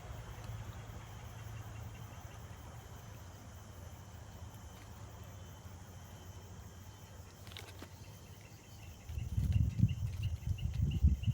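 Outdoor ambience with a steady low hum; in the second half an insect chirps rapidly, about four high chirps a second. From about nine seconds in, loud irregular low rumbles take over.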